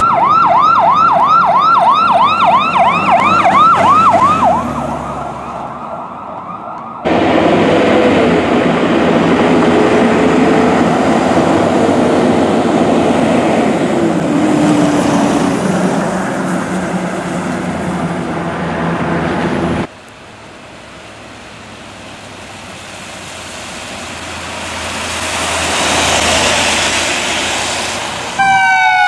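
A run of emergency vehicles passing on sirens. It starts with a fast electronic siren yelping up and down, which fades out after about five seconds. Then comes a loud stretch of a heavy truck's engine and road noise with a low tone sliding slowly down, a quieter passage of tyre and traffic noise that swells and falls, and near the end a wailing siren begins.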